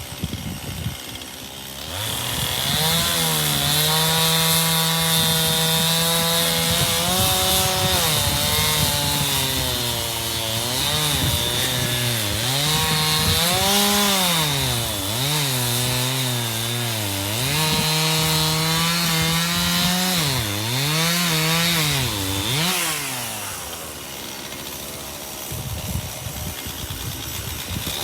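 Chainsaw cutting ash wood. About two seconds in it opens up to full throttle. Its pitch then drops again and again as it bogs under load in the cut, and climbs back up each time.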